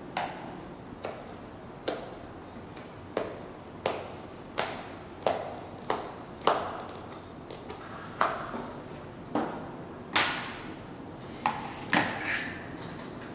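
A series of sharp clicks and taps, irregular and roughly one every 0.7 seconds, some with a short ring, from a flat-bladed, wooden-handled hand tool worked along the hand-stitched leather welt of a Dr. Martens boot.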